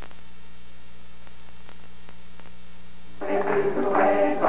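Steady electrical hum with hiss and faint crackle from an old broadcast tape during a blank gap between segments. About three seconds in, folk music starts.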